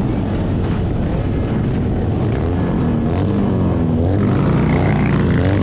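Sport motorcycle engine running at highway speed, its note wavering up and down with the throttle, over steady wind rush on the helmet microphone.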